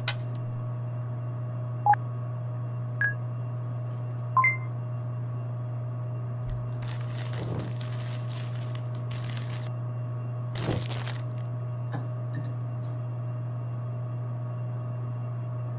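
Vending machine keypad beeping as buttons are pressed: three short electronic beeps at different pitches, over the machine's steady low electrical hum. Around the middle comes a few seconds of rushing noise, then a shorter burst of it.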